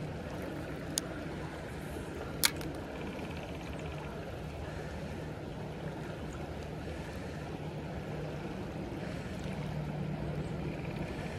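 Creek water flowing steadily over a riffle. Two sharp clicks break through, a light one about a second in and a louder one about two and a half seconds in.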